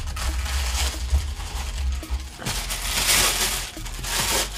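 Crinkling and rustling of the plastic bag around a microphone spring arm as it is pulled out of its foam packing and unwrapped. The crinkling is loudest in the second half.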